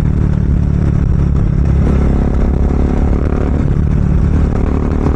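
Bajaj Dominar 400's single-cylinder engine running through an aftermarket Akrapovic exhaust while the bike is ridden, a loud, steady deep exhaust note with slight changes in pitch.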